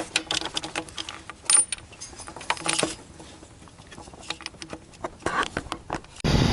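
Small metal clicks and clinks of bolts and socket tools being handled as the bolts go back into the thermostat housing elbow on a GM 5.7L engine. Near the end it cuts suddenly to the steady sound of the engine running.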